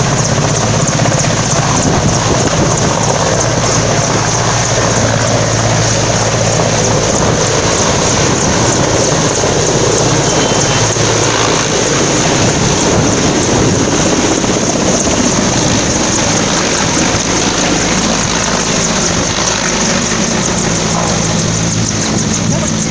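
Mi-8/Mi-17-type twin-turbine helicopter taking off and climbing away: loud, steady rotor noise with a high turbine whine over it.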